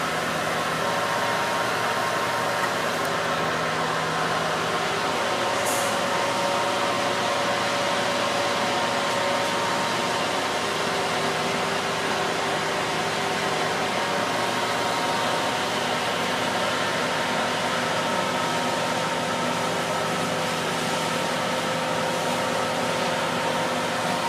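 A job-site machine's engine running steadily, its pitch shifting slightly now and then.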